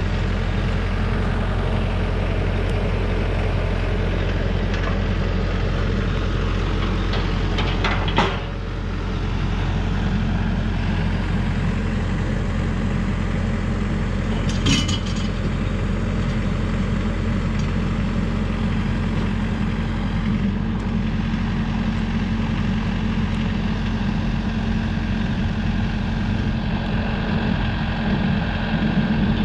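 Tractor engine idling steadily. Two sharp metal clanks, about eight and fifteen seconds in, come from steel parts being handled.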